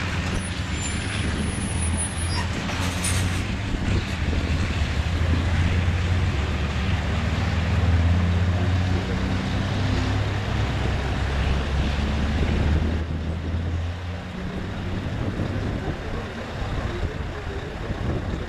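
Scania V8 diesel truck engine running at low speed while manoeuvring, a steady low engine note that grows louder as the truck passes close and falls away after about fourteen seconds. A short hiss comes about three seconds in.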